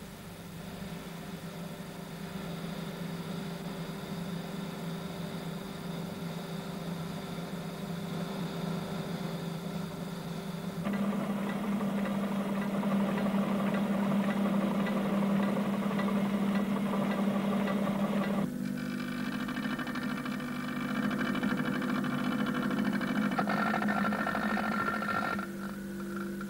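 Stone-working machines running steadily as they grind and shape black limestone, with a spinning wheel working the stone. The steady hum and whine change character abruptly twice, about eleven and eighteen seconds in.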